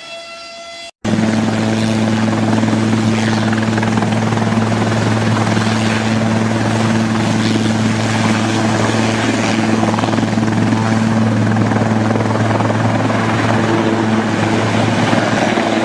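Air ambulance helicopter hovering low and close, its engines and rotors running with a loud, steady hum over a wash of rotor noise. It cuts in suddenly about a second in, after a brief steady pitched tone.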